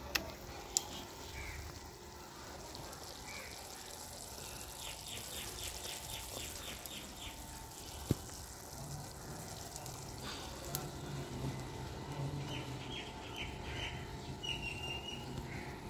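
Pot of fish curry bubbling on a wood-fired stove, with a low steady sizzle and a few sharp cracks from the fire. A bird chirps in short rapid runs about five seconds in and again near the end.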